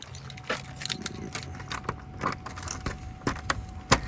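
Keys jangling, with a rapid run of small metallic clicks and rattles and one sharper knock near the end.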